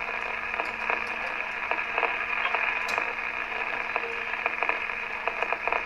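Radio static between broadcasts: a steady hiss under a low steady hum, dotted with scattered crackles and clicks.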